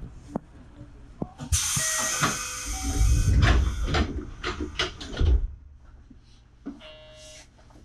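A train's compressed-air system lets out a sudden loud hiss for about two seconds, while the train is standing at a station. Heavy thuds and knocks follow, and a short electronic beeping tone sounds near the end.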